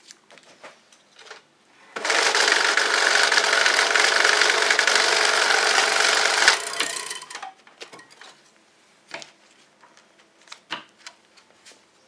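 Desktop friction-roller banknote counter running a stack of about a hundred bills: a loud, dense mechanical whir for about four and a half seconds, starting about two seconds in and stopping fairly abruptly. Scattered light clicks and paper rustles follow as the counted notes are handled.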